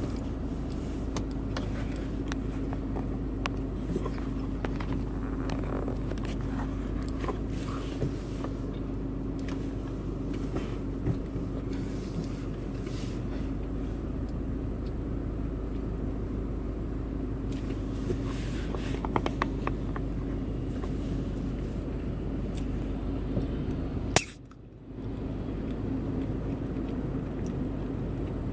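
Stock 2011 Subaru WRX's turbocharged 2.5-litre flat-four engine running steadily with a low, even rumble. About 24 seconds in, a sharp click is followed by a brief dropout, and then the steady engine sound returns.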